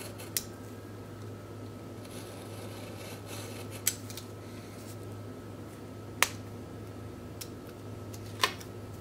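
Snap-off utility knife cutting paper on a wooden tabletop: four sharp ticks spread a couple of seconds apart as the blade point presses through the paper, over a steady low hum.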